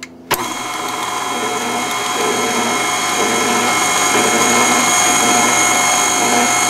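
KitchenAid Classic stand mixer switched on with a click about a third of a second in, then its motor running at low speed with a steady whine as the wire whisk beats egg whites while yolks are added.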